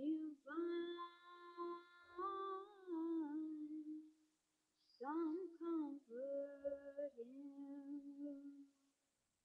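A person humming a tune faintly, in two phrases of held notes with wavering slides; the second phrase starts about five seconds in after a short pause.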